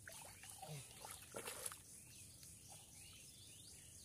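Faint splashing in shallow muddy water as hands grab at a catfish, a few short splashes in the first second and a half, over a steady faint high hiss.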